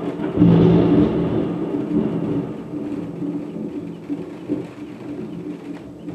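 Thunder from a nearby lightning strike: a loud peal that swells in the first half second and then rolls on, slowly fading.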